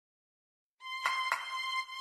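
Background music starting a little under a second in: a steady held high tone, with two quick percussive hits just after it begins.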